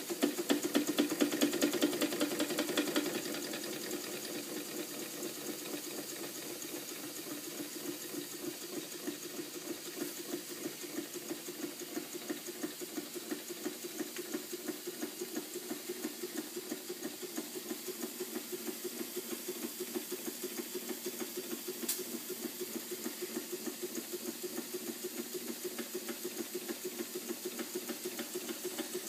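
Weeden No. 34 toy live steam engine running, its cylinder exhausting in a fast, even chuff with a hiss of steam. It is louder and hissier for the first few seconds, then settles to a steady rhythm.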